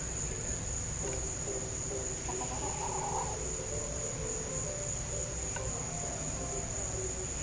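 Crickets trilling steadily with a continuous high-pitched note.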